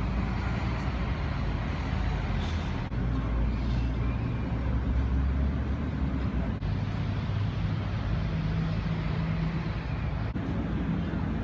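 A CAF-built Luxtram tram standing at a stop with its doors open, its onboard equipment giving a steady low hum that wavers slightly in pitch, over a constant haze of outdoor noise.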